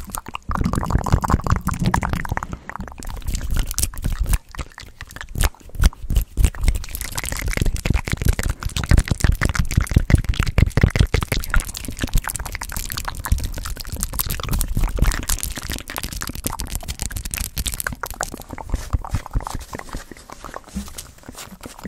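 Close-mic ASMR mouth sounds: fast wet clicks and smacks, mixed with hands brushing and thumping quickly around the microphone.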